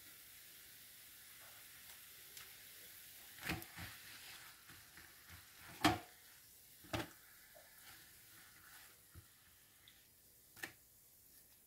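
Tomato-paste and oil sauce sizzling on a hot electric grill tray, with a few short sharp knocks as sheets of yufka flatbread are laid into it and lifted out, the loudest about halfway through.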